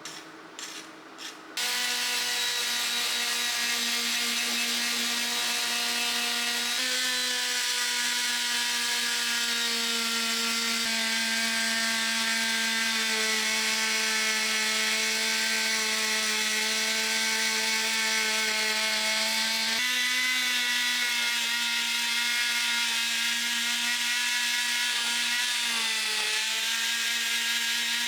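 A few light clicks, then about a second and a half in a handheld power tool starts and runs steadily: a motor whine over a rough rubbing hiss. Its pitch sags briefly a few times.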